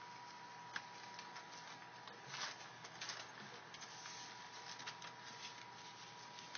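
Three-week-old pit bull puppies suckling at their mother: faint, scattered clicks and smacks, with a slightly longer rustle about two and a half seconds in. A faint steady high tone runs underneath.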